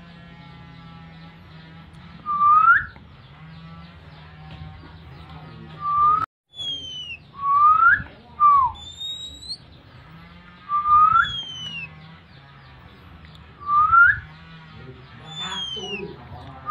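Oriental magpie-robin (kacer) in breeding condition giving its whistled call: one clear upward-sliding note every two to three seconds, with fainter high falling chirps between them. A low hum runs underneath, and the sound cuts out for a moment near the middle.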